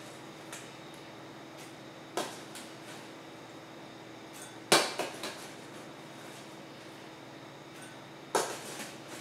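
A spoon clinking against a metal food can and a glass measuring cup while scooping out freeze-dried food: three sharp clinks, the loudest about halfway through with a couple of lighter ticks after it, over a steady low hum.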